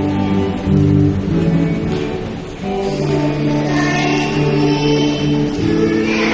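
A song sung by several voices together over music, in long held notes that change every second or two.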